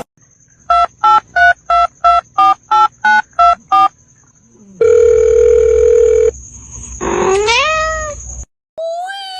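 A run of ten short electronic beeps, about three a second, like a phone being dialled, then a steady electronic tone for about a second and a half. Near the end a cat meows once, rising in pitch.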